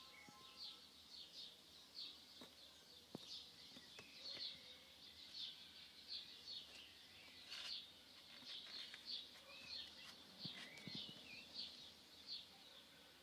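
Faint chirping of small birds: a steady run of short high chirps about twice a second, with a few gliding whistles. Soft scattered knocks and scratches sit underneath.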